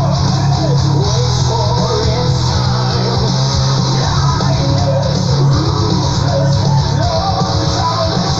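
Recorded power-progressive metal song playing: dense distorted guitars, bass and drums under a wavering melodic vocal line.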